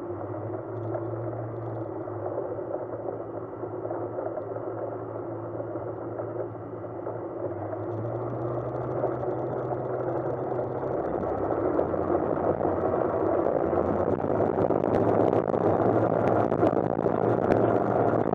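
Rotax engine and propeller of a light tailwheel aircraft running steadily at taxi power, then opened up for the takeoff roll about halfway through, getting louder and holding at full power as the aircraft lifts off and climbs. A few sharp clicks come near the end.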